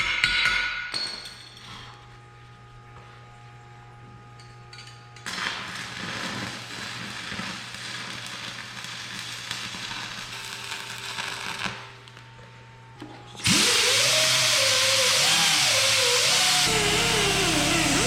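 Angle grinder starting up about three-quarters of the way in and grinding down tack welds on steel, a loud, harsh noise with a whine that wanders up and down in pitch as the disc bites into the metal. Before it, a quieter stretch of steady hum and a softer hiss of metalwork.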